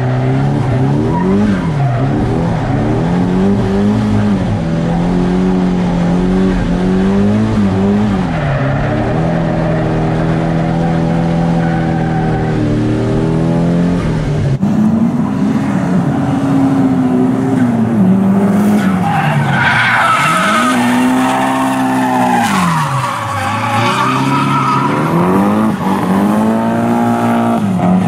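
Nissan Silvia drift car's turbocharged SR20 four-cylinder revving up and down again and again through a drift run, with tyres squealing. The first half is heard from inside the cabin; about halfway through it switches to trackside, where the tyre squeal comes through more.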